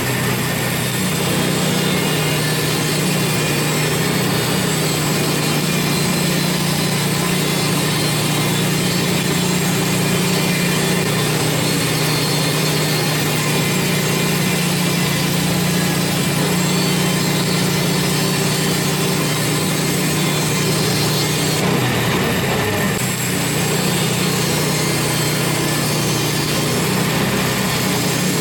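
Sawmill engine running steadily as the blade cuts through a pine log, with a brief change in the sound a little over 20 seconds in.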